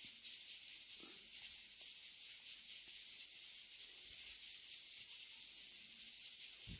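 Steady faint hiss with no clear event, broken only by two soft handling sounds, about a second in and near the end.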